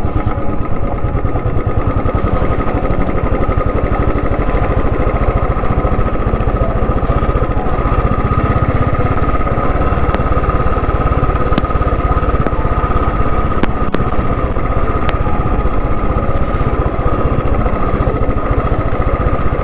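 Motorcycle engine running steadily while riding, with a few sharp knocks over the middle stretch.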